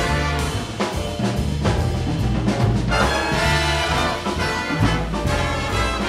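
Live big band playing a jazz arrangement: saxophones, trombones and trumpets with upright bass, piano and drums, all sounding together.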